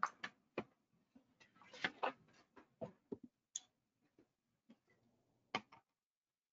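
Faint, irregular clicks and small taps, about a dozen, scattered with silence between them, like handling noise on a microphone.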